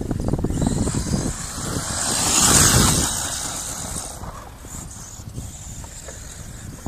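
Radio-controlled 4WD truck running across loose sand, its motor and tyres swelling to loudest about two and a half seconds in and then easing off.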